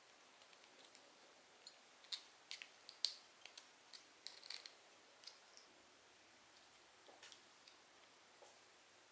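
Needle-nose pliers working a thin metal wire through a plastic bottle cap: a string of light, sharp clicks and ticks of metal on metal and plastic. They cluster about two to five seconds in, the loudest near three seconds, and a few fainter ones follow.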